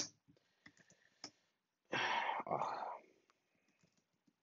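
A few computer keyboard key clicks, then a single noisy, breath-like sound about a second long near the middle.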